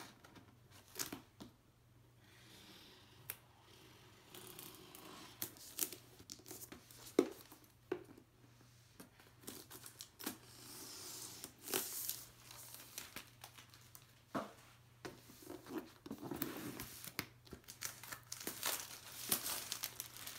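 Plastic shrink-wrap on a MacBook Pro box being pierced with a pen and torn off: crinkling and tearing plastic with scattered sharp clicks.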